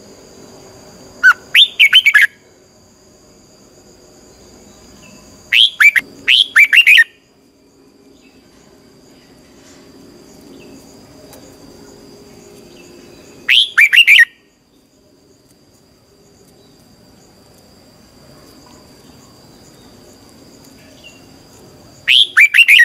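Red-whiskered bulbul singing: four short, loud phrases of several quick notes that sweep downward, separated by pauses of several seconds, over a faint steady high-pitched hum.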